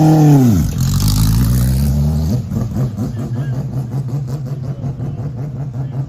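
Mazda Group C race car's four-rotor rotary engine held at high revs, then dropping steeply back to a low, uneven idle within the first second, with a short rise again about two seconds in.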